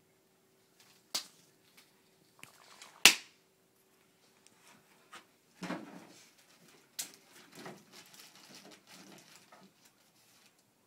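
Two sharp snaps, the second the loudest, followed by irregular crinkling and rustling of a clear plastic bag handled with gloved hands. A faint steady hum runs under the first half.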